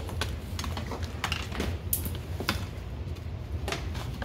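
Scattered light clicks and taps of small items being handled and rummaged through in a pile, over a steady low hum.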